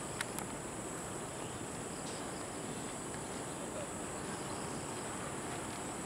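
A steady high-pitched insect drone over an even background hiss of outdoor noise, with two faint clicks just after the start.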